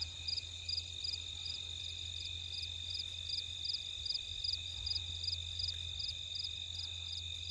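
Insects, crickets among them, calling steadily: a continuous high trill with a second insect chirping evenly about two and a half times a second, over a low steady hum.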